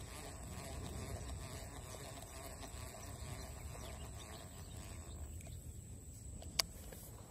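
Low steady outdoor rumble with a faint steady high whine above it, and a single sharp click near the end.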